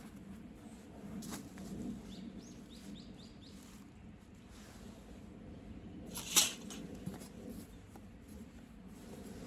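A bird calls with a quick run of about five short, high, rising notes. About six seconds in comes one sharp clatter, the loudest sound here.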